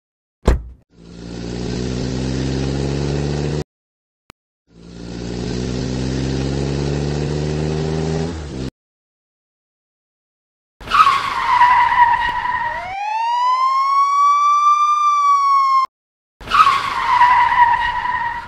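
Sound effects of a car engine revving up twice, each about three seconds long with its pitch climbing. After a pause comes a screech, then a single siren wail that rises and falls, and another screech near the end.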